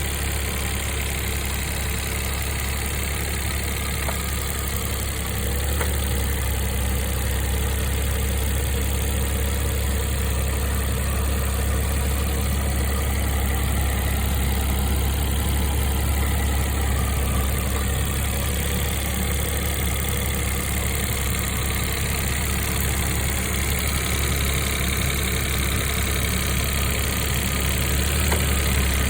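A 2006 Mitsubishi i's 660 cc three-cylinder engine idling steadily, slightly louder from about five seconds in. The car has two abnormal noises: a clattering rattle, which the owner puts down to a failing air-conditioning compressor strained by a new auto-tensioner, and a whirring that seems to come from inside the engine.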